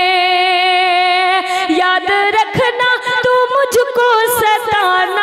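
A woman singing a Hindi-Urdu geet: she holds one long steady note, then about a second and a half in moves into a melodic run with sliding, ornamented pitch.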